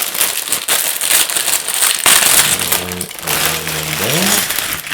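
Plastic Lego parts bags being torn open and crinkled: loud rustling and crackling of thin plastic.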